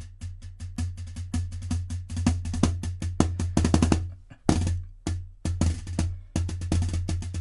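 Wooden drumsticks playing a snare-drum study on a Roland drum practice pad: quick runs of strokes and rolls, busiest in the middle, broken by a few short rests in the second half.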